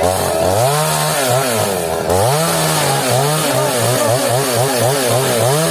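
Stihl chainsaw engine revving, its pitch rising and falling over and over, in slower swells at first and then in quicker cycles of about two a second.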